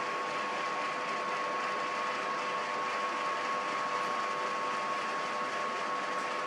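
Steady machine hum: a constant high whine over an even hiss, without change.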